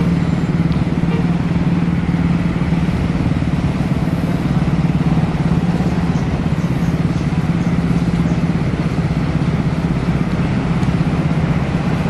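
A vehicle engine running steadily with road noise while travelling in traffic: a constant low drone that eases slightly about two thirds of the way through.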